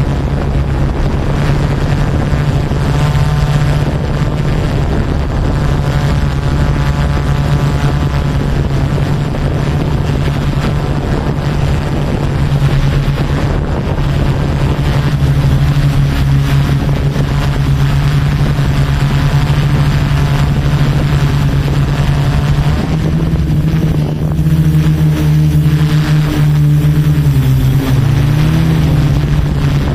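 Yuneec Typhoon Q500 4K quadcopter's motors and propellers humming steadily in flight. Several seconds from the end the pitch shifts and wavers, then dips briefly, as the motors change speed.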